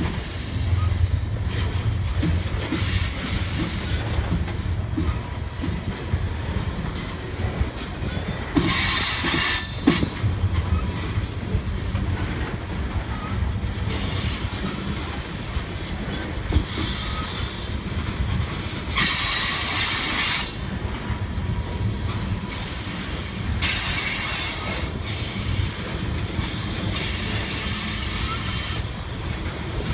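Freight train of tank cars rolling past: a steady low rumble of steel wheels on rail with a few knocks. High-pitched wheel squeals come and go every few seconds, first about eight seconds in and then repeatedly to the end.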